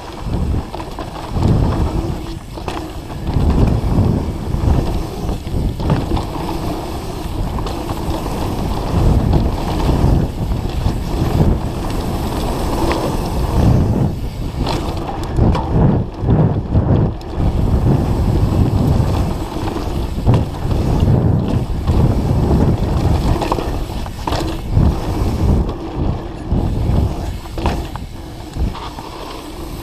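Mountain bike ridden fast downhill over dirt and gravel: wind buffeting the camera microphone, mixed with tyre rumble and frequent knocks and rattles from the bike over bumps.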